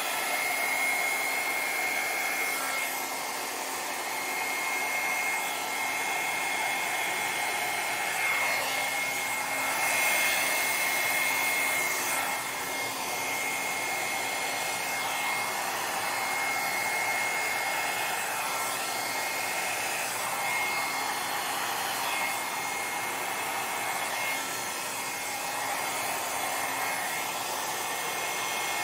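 Small handheld hair dryer with a narrow nozzle running steadily, blowing poured acrylic paint across a canvas in a Dutch pour. A rush of air with a steady high whine, swelling a little as it moves.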